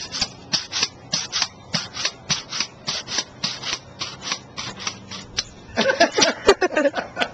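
Footsteps crunching over dry grass and ground, an even scuffing stride about three steps a second, with a thicker jumble of rustling about six seconds in.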